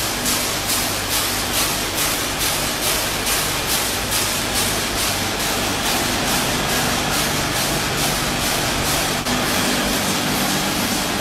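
Automatic coal-granule packing machine running: a steady low motor hum under a dense, even noise that pulses about three times a second.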